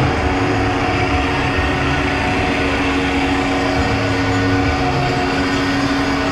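Carousel in motion: the steady mechanical hum and rumble of the ride's drive, with one constant tone under it.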